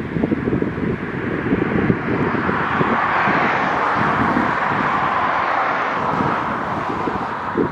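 Road traffic passing on a bridge, a vehicle's tyre noise swelling and fading away over several seconds, with wind buffeting the microphone.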